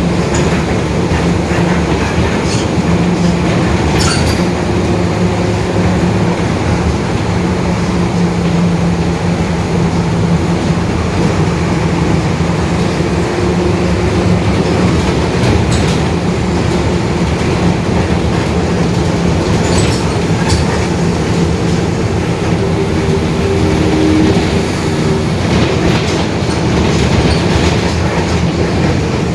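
Mercedes-Benz OF-1721 BlueTec 5 bus heard on board while under way: a steady drone from the diesel and driveline, with the growl of its differential, and a few sharp rattles from the body now and then.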